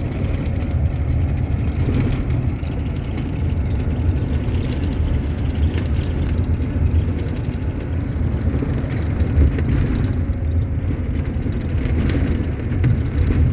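Steady low rumble of a car on the move, heard from inside: engine and road noise holding an even level throughout.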